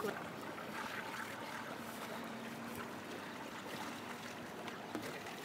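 Water lapping gently against the hull of a small sailboat moored at a wooden dock, with a steady wash of outdoor noise and a faint brief hum about two seconds in.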